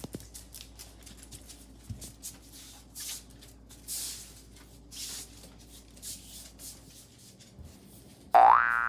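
Dogs playing on an indoor floor: light scuffling and clicking with soft breathy bursts about once a second. Near the end a loud springy boing sound effect starts, rising in pitch.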